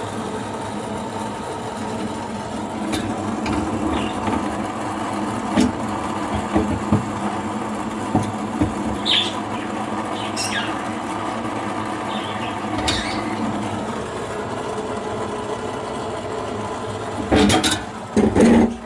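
A steady machine hum with several fixed tones, with scattered clicks and knocks, a few short high squeaks in the middle and a cluster of louder knocks near the end.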